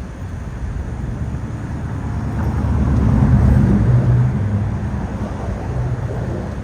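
A passing vehicle: a low rumble that swells to its loudest about three to four seconds in, then fades.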